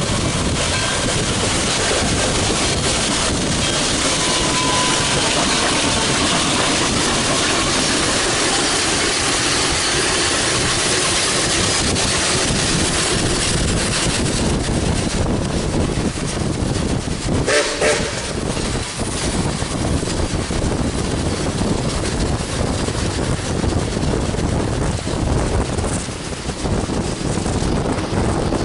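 Nickel Plate Road Berkshire 2-8-4 steam locomotive No. 765 and its passenger train running along the track, heard close alongside from a moving car, under a steady rush of road and wind noise.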